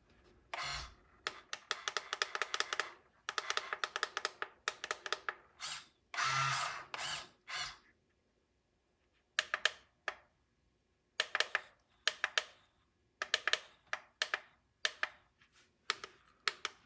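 Small electric motor and gearing of an RC dump truck running in short bursts, a rapid clicking whir that starts and stops about a dozen times.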